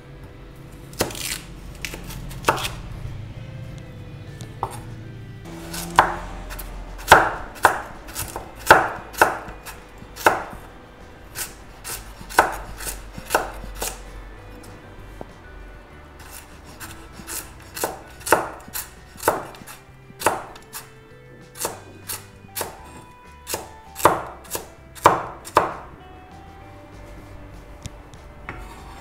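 Kitchen knife dicing carrots on a wooden cutting board: sharp knocks of the blade striking the board, in quick irregular runs broken by short pauses.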